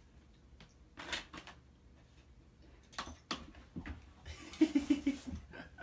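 A pet-door flap clicks and knocks as a dog pushes through it. A louder run of quick low pulses comes about four to five seconds in.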